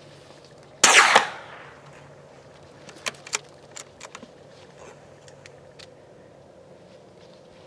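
A single .22 LR rifle shot from an old Sears and Roebuck rifle, a sharp crack that rings off over about a second. A few faint clicks follow a couple of seconds later.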